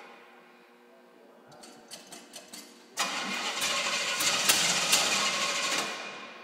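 Pontiac GTO's V8 engine being cranked in a start attempt: a few faint clicks, then about three seconds in a loud burst of cranking and running that fades out after about three seconds.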